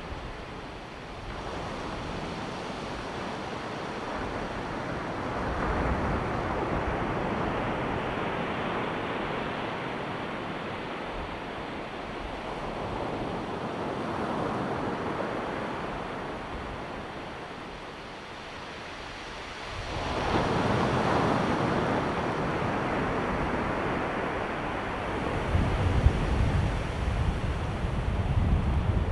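Ocean surf: waves breaking and washing ashore in slow swells every several seconds, with wind buffeting the microphone and a low rumble near the end.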